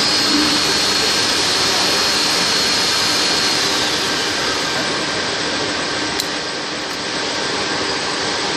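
Corrugated plastic hose extrusion line running steadily: a constant mechanical hiss and hum, with a high whine that fades out about three and a half seconds in.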